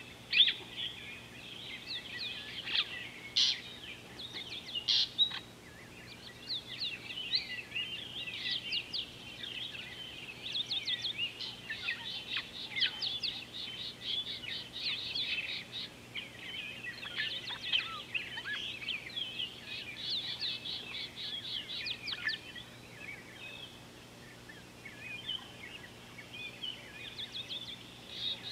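A chorus of small birds chirping and calling over one another, with quick trilled runs of high notes.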